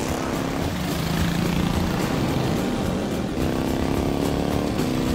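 Early motorcycle engine running hard at speed.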